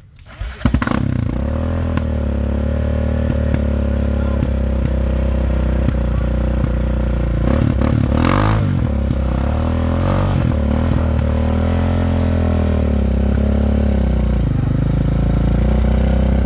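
ATV engine running, coming in abruptly about half a second in, its pitch rising and falling with the throttle, with some clatter.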